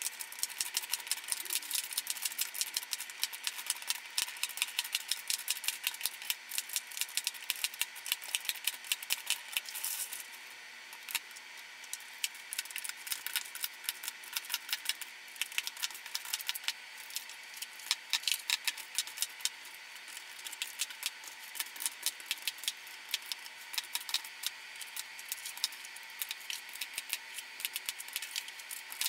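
Rapid, dense clicking and clattering of lipstick tubes being picked up and set down in a plastic drawer organizer grid, sped up in fast forward.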